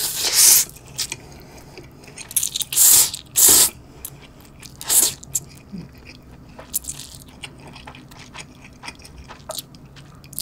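A person slurping instant ramen noodles, about six loud, hissy slurps in the first seven seconds, followed by quieter chewing.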